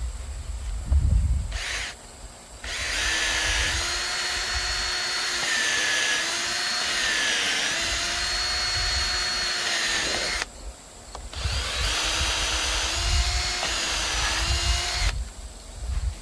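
Cordless drill running into a wooden pallet post in two long runs, the first about seven seconds and the second about four. Its motor whine dips in pitch now and then.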